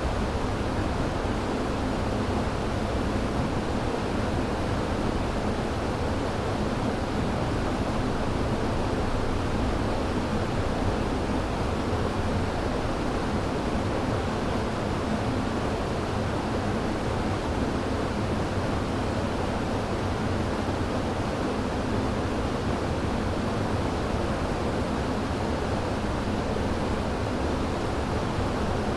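A river running: steady rushing water with its weight in the low and middle range, unchanging throughout.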